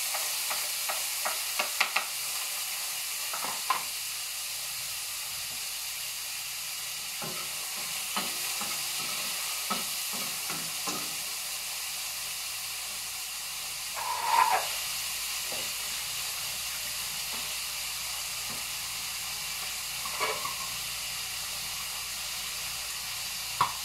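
Garlic, tomato, onion and ginger sautéing in oil in a wok, a steady sizzle, with a spatula scraping and clicking against the pan. There are a few louder clatters in the second half.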